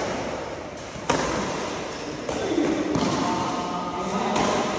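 Badminton racket strikes on a shuttlecock during a rally: a few sharp hits about one to two seconds apart, each trailing off in a long decay.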